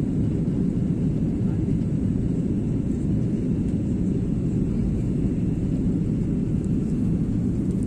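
Steady, low cabin noise of an airliner in flight: engine and airflow noise heard from inside the passenger cabin.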